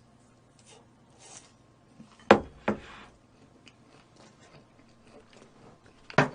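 Quiet eating and food-handling sounds from a roast chicken meal, with two sharp knocks a moment apart about two seconds in and another near the end.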